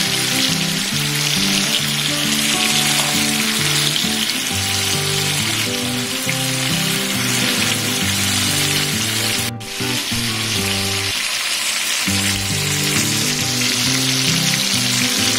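Chicken drumsticks shallow-frying in hot oil in a tawa, a steady sizzle that breaks off for a moment about nine and a half seconds in. Background music plays underneath.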